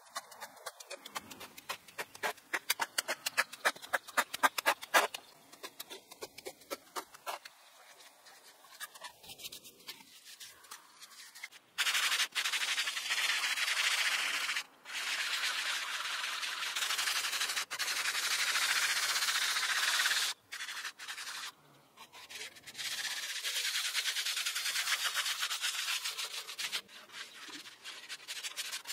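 A hand plastering float rubbing over the fresh cement render of a domed tandoor oven in long, steady passes, a dry scraping sound. Before that comes a run of quick, sharp scrapes and taps.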